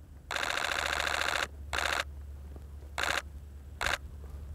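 DSLR shutter firing in continuous burst mode: a rapid-fire run of about a second, then a short burst, then two brief bursts near the end.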